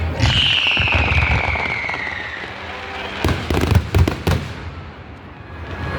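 Aerial fireworks: a whistling shell lets out a long whistle that falls steadily in pitch, with crackling around it. About three seconds in comes a rapid cluster of sharp bangs.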